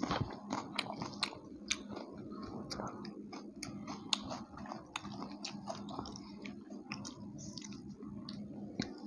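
Close-up chewing and biting of deep-fried puri flatbread with haleem, with many short, irregular crisp clicks over the chewing.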